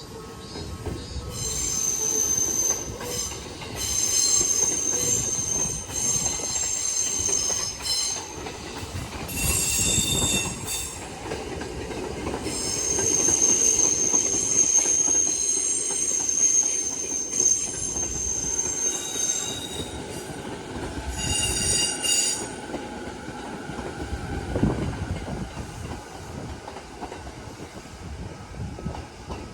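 Izu Kyuko Line electric train running past, its wheels squealing high and shrill in repeated stretches over a steady rumble of wheels on the rails. The squealing stops near the end while the rumble carries on.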